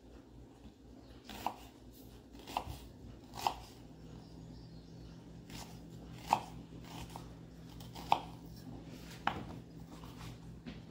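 Kitchen knife dicing a red onion on a cutting board: about eight separate, unevenly spaced knife strikes against the board.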